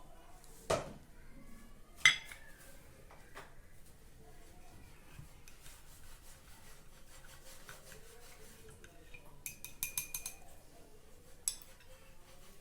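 Kitchenware clinking: a dull knock near the start, a sharp ringing clink about two seconds in, then a quick run of ringing clinks around ten seconds and one more shortly after.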